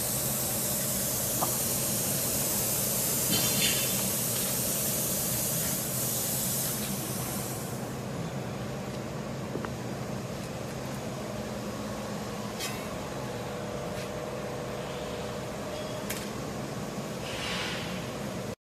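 CNC plasma cutting table's torch letting out a steady loud hiss of air, which stops about eight seconds in. Afterwards the machine keeps up a steady hum, with a few light clicks.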